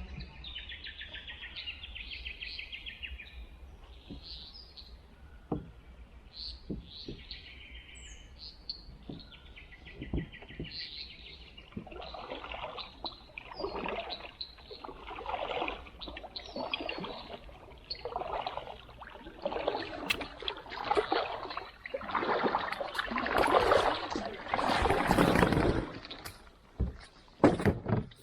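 Birds chirping and trilling, then a run of irregular rustling and scraping handling noises up close that grow louder, with a few sharp knocks near the end.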